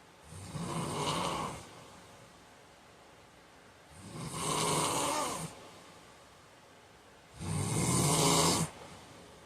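A man snoring in his sleep: three snores about three and a half seconds apart, each lasting about a second and a half.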